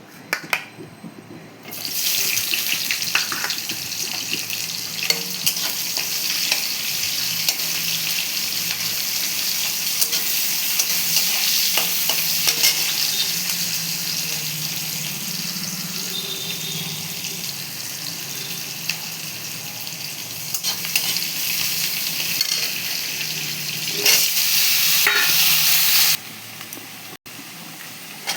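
Potatoes and bora beans sizzling as they fry in hot oil in a pan, a steady hiss that starts about two seconds in, with occasional clicks and scrapes of a spatula stirring the pan. The sizzle drops away sharply near the end.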